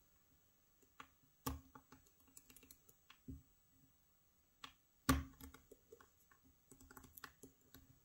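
Faint, irregular clicks and light metallic taps of a pick working the sliders of a Fontaine Dynaxis Bramah-style lock, with two sharper clicks about one and a half seconds and five seconds in.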